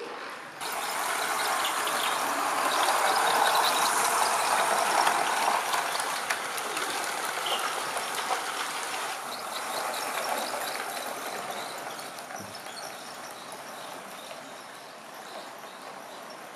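3D-printed S-scale model train running on its track: wheels rattling with many rapid small clicks. It starts suddenly about half a second in, is loudest over the next few seconds as the cars pass close, and then slowly fades.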